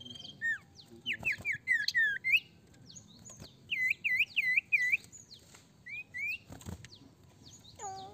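Common iora (sirtu) singing in clear whistled notes: a quick run of sweeping notes, then four looping notes in a row, two short rising notes, and a lower call near the end.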